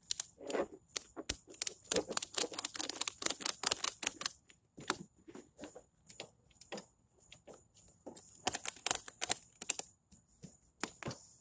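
Metal ratchet-strap buckle clicking and rattling as it is worked by hand, in quick runs of clicks. There is a dense run over the first four seconds, a few scattered clicks after it, then another run about eight seconds in.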